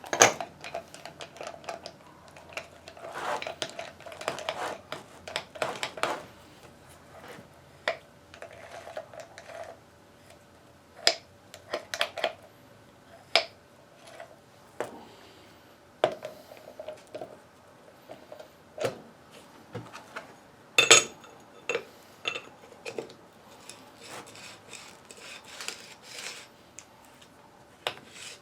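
Metal parts of a Warn VR8000 winch's gear stack being handled and fitted back together: irregular clinks, clacks and light scraping of steel on steel, some clinks ringing briefly. The loudest clatter comes about 21 seconds in.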